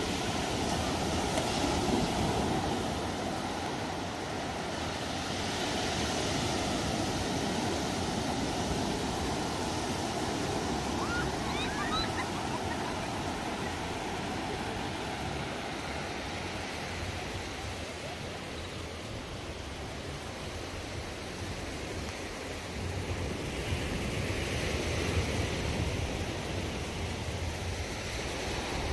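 Steady rushing of water, with a few faint high chirps near the middle.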